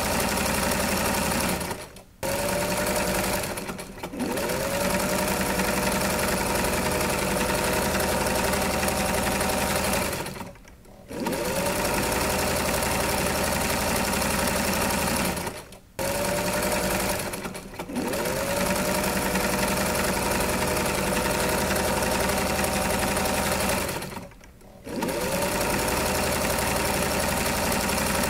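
Electric sewing machine running in long spells, stopping briefly several times and speeding back up after each stop.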